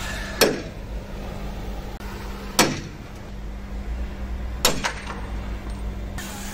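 Sledgehammer blows on a steel tool held against a truck chassis's steel spring hanger bracket: three heavy metallic strikes about two seconds apart, the last with a quick second knock.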